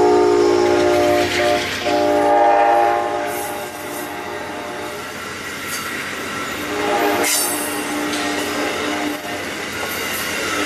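Horn of a passing GE P42DC passenger locomotive sounding its multi-note chord in blasts: one to about two seconds in, another to about three seconds, and another from about seven to nine seconds. Between the blasts, Amfleet passenger coaches rush by with wheel clatter over the rail joints.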